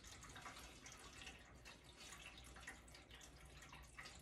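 Near silence: faint room tone with scattered tiny clicks.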